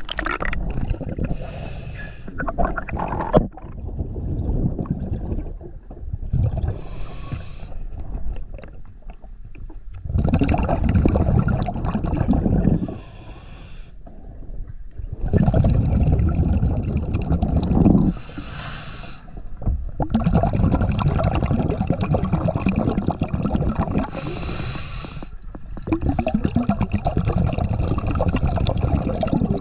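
A diver breathing through a regulator underwater: a short hiss on each inhale, five breaths about five and a half seconds apart, with longer spells of low bubbling from the exhaled air in between.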